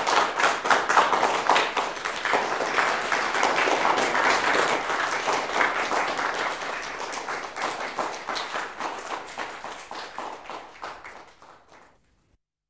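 Audience applauding, many hands clapping, dying away over the last few seconds.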